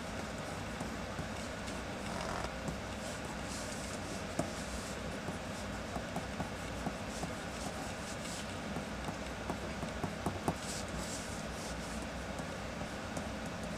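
Pencil sketching on paper: short scratchy strokes and light ticks of the lead over a steady background hum.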